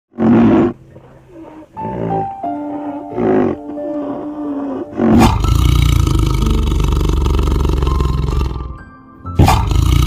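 Tiger roaring and growling: three short calls in the first few seconds, then a long low roar from about five seconds in and another near the end, over background music.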